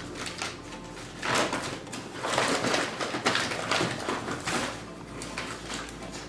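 Rustling and scraping of handling as all-purpose flour is measured out, loudest in the middle seconds and fading near the end.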